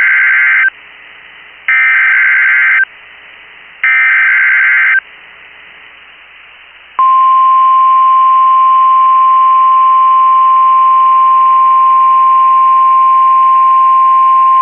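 Emergency Alert System SAME header: three one-second bursts of warbling digital data, about a second apart. About seven seconds in, the steady single-pitch 1050 Hz NOAA Weather Radio warning alarm tone starts and holds, marking the start of a new warning broadcast.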